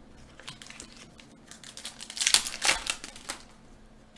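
Foil hockey-card pack wrapper crinkling and tearing open, with a louder run of crinkling about two seconds in that lasts about a second.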